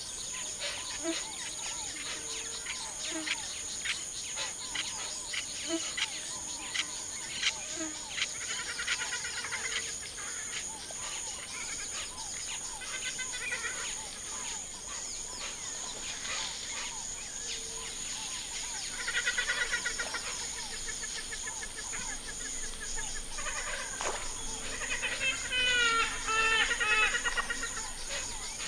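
Birds singing and calling over a steady, high-pitched insect chirping that pulses evenly. Two louder bursts of rapid trilling birdsong come about two-thirds of the way in and again near the end.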